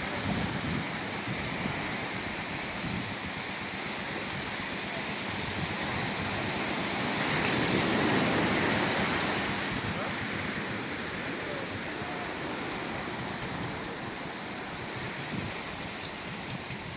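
Sea surf washing onto a beach: a steady rush that swells to its loudest about eight seconds in, then ebbs.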